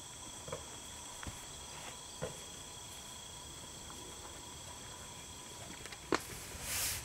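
Night insect chorus: a steady, high-pitched trilling. A few faint knocks come through it, and there is a short rustle near the end.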